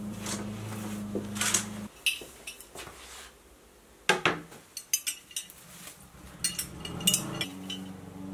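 A glass vase is set down and shifted on a metal tray table, with several sharp clinks and knocks a few seconds in. A steady low hum is heard at the start and again near the end.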